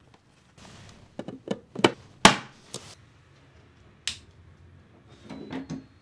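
Sharp plastic clicks and knocks from installing a wall switch: a screwdriver driving the screws of its plastic mounting plate into the wall box, a dozen or so separate taps with the sharpest one about two seconds in.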